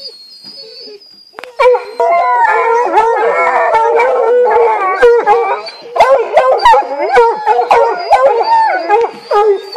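A pack of bear hounds bawling and howling together, several voices overlapping, starting suddenly about one and a half seconds in.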